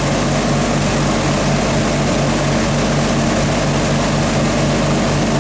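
1954 Hobart 10 kW military generator's Hercules IXB engine running steadily at low warm-up speed with an even, pulsing beat, the generator unloaded.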